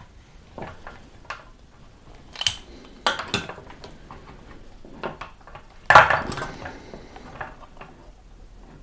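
Handling noise from the soldering station as it is picked up and turned over: scattered clicks and knocks of its hard casing, the loudest knock about six seconds in.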